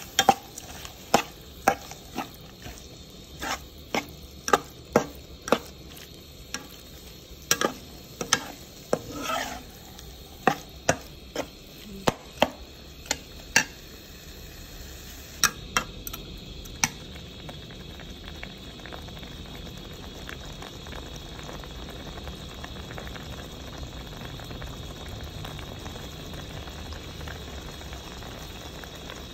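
Metal spatula stirring shell-on snails in a wok, with sharp clacks of the spatula and shells against the pan over a steady frying sizzle. The clacks stop a little past halfway, leaving an even sizzle of the snails simmering in their spicy sauce.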